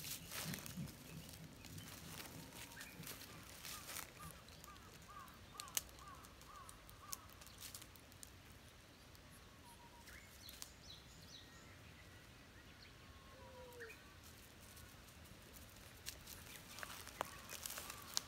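Faint outdoor ambience of a wooded park: a bird calls repeatedly in a quick series of short arched notes a few seconds in, with a few scattered bird notes later. Footsteps rustle through dry fallen leaves near the start and again near the end.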